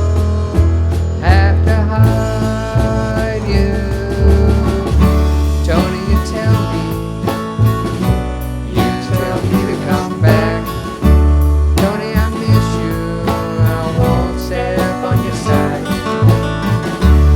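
A band playing an instrumental passage of a country-tinged song: guitar over low bass notes and a steady beat.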